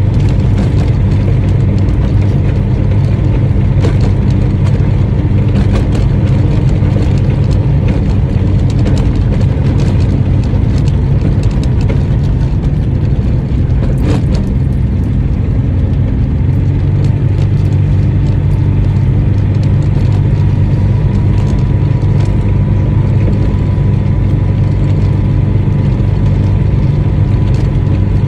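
Engine of a voiture sans permis (licence-free microcar) running, heard from inside the cabin: a loud, steady low drone with a faint thin whine above it and a sharp click about halfway.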